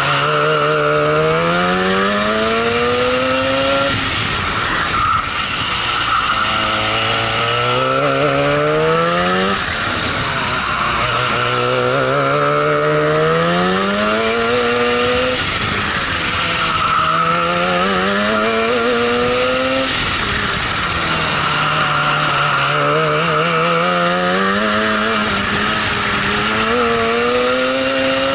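Racing kart's Hirth two-stroke engine heard onboard, revving up along each straight and dropping back for the corners, about six times over, with a steady hiss underneath.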